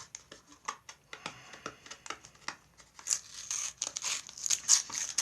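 Sellotape being peeled up and pressed back down on thin mylar spider legs: a run of sharp crackles and ticks that gets denser and louder about three seconds in.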